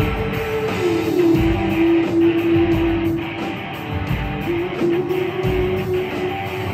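Live rock band playing electric guitars, bass and drums, with a long held note that drops in pitch about a second in and then holds.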